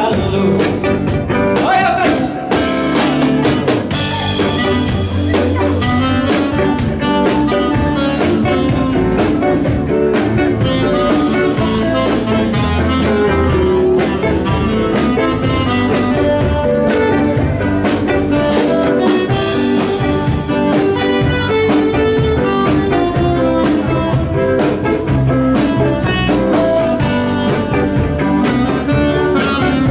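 Live band playing a bluesy number on electric guitar, electric bass and drum kit, loud and steady with a regular beat.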